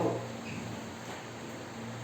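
The tail of a spoken word, then a steady low hum under faint room noise. No crack or knock is heard.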